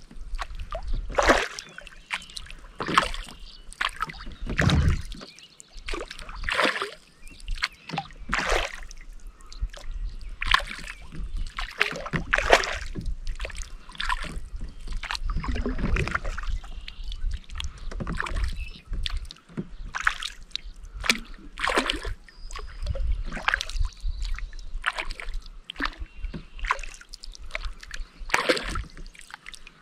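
Kayak paddle strokes: the blade dipping and pulling through the water with splashes and drips, about one stroke every two seconds.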